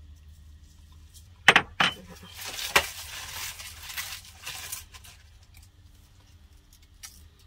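Kitchen handling sounds as seasonings go into a pot of cabbage. A small bowl clinks sharply against the pot twice about a second and a half in, and knocks once more. Then comes a few seconds of rustling with light clatter, and a few quieter ticks later on.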